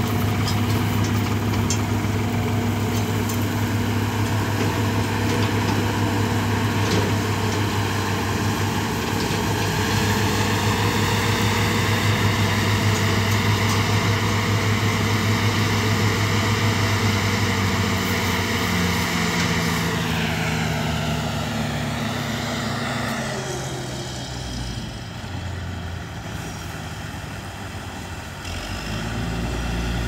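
Heavy diesel farm machinery, a tractor and a New Holland combine harvester, running with a steady deep engine hum. The hum eases and shifts after about twenty seconds and grows louder again near the end.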